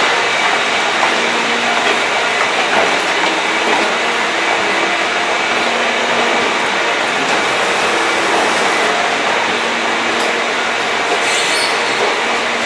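Escalator running: a steady mechanical hum from the moving steps and drive, even in level throughout.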